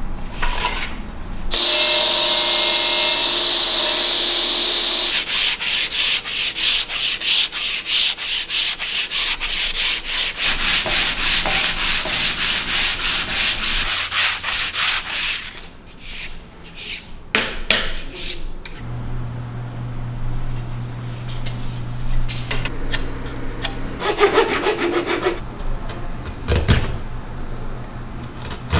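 Wood being shaped by hand: a steady whine with several pitched tones for about three seconds, then quick regular rubbing strokes on wood, several a second. In the second half, scattered scraping cuts into wood over a steady low hum.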